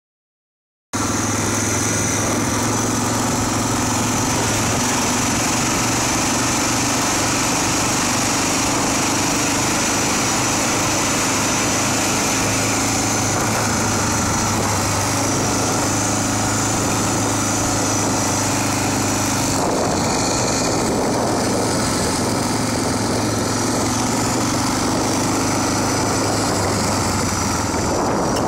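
Small engine of a vehicle running steadily while riding along a road: a constant low hum with a broad rush of noise over it, starting abruptly about a second in.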